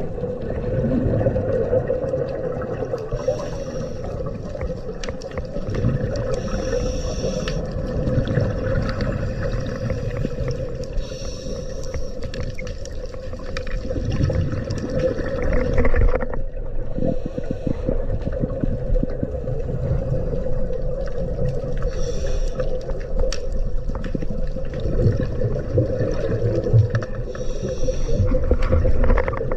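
Underwater sound of a scuba diver breathing through a regulator. Exhaled bubbles gush out in short hissing bursts about every four seconds over a steady low hum and rumble.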